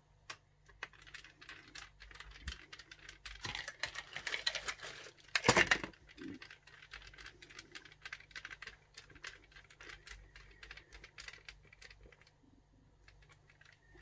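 Small screwdriver tightening the last screws into an HP Omen X 2S laptop's bottom panel: a run of light, quick clicks and ticks, with one brief louder scraping noise a little before halfway, dying away near the end.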